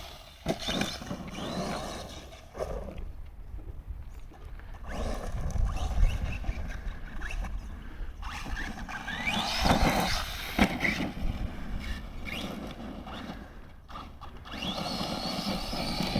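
Rival MT10 RC monster truck driving on dirt, its electric motor whining up and down in pitch as it accelerates and slows, with tyre and ground noise and a couple of knocks about ten seconds in.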